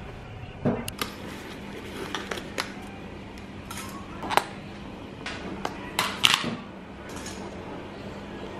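Scattered clicks and clinks of small hard objects being handled, several in quick succession around six seconds in, over a faint steady hum.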